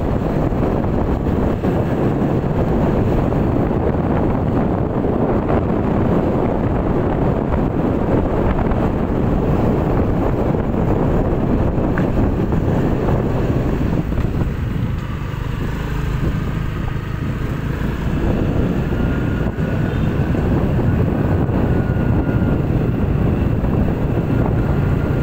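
Motorcycle running while riding along a road, with wind buffeting the microphone in a steady, loud rush.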